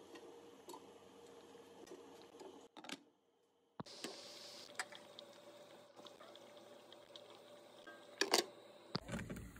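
Pot of vegetable soup simmering on a stove, a faint steady bubbling with a low hum. A few light clicks and knocks from pot and utensils, with a brief dropout to near silence about three seconds in and a louder clatter about eight seconds in.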